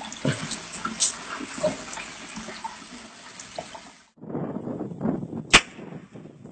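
Water splashing with scattered drips and small slaps. About four seconds in it changes abruptly to a duller, rougher noise with one sharp knock about a second later.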